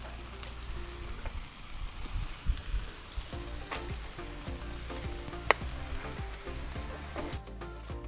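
Food sizzling on a hot flat-top griddle as sweet soy sauce is poured over rice and diced vegetables, with a few sharp clicks, one louder than the rest. Music comes in near the end.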